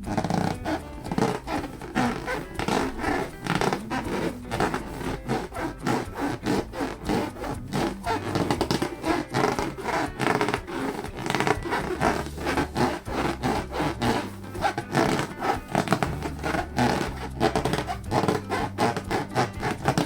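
Hands rubbing and squeezing inflated latex balloons in quick, repeated strokes, with background music underneath.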